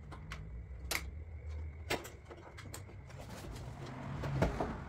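A few sharp metallic clicks and taps as the pop-up headlight bracket and its screws are fitted by hand, then a close rustle of a sleeve brushing past, ending in a knock.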